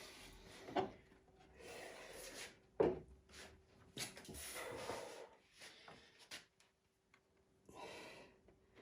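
A cloth rubbing in short swishes over a waxed wooden cabinet, with a few light knocks of wood being handled.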